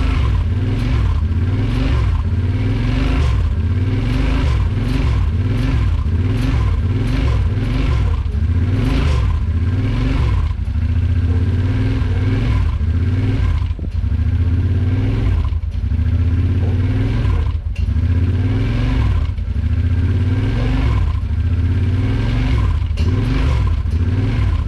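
Freshly rebuilt 2008 Kawasaki Brute Force 750 fuel-injected V-twin ATV engine running on its first start after the rebuild, with a steady low drone that swells and dips about once a second.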